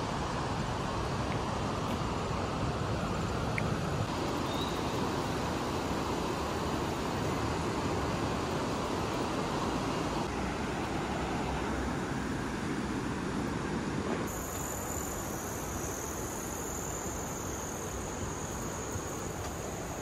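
Steady outdoor rushing noise with no speech. About fourteen seconds in it eases slightly and a high, steady insect trill sets in.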